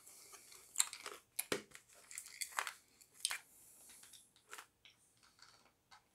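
Clear plastic snap-on lid pressed down onto a metal candy can: a string of faint, irregular plastic clicks and crackles that thins out after about four and a half seconds, with hard candy being crunched in the mouth.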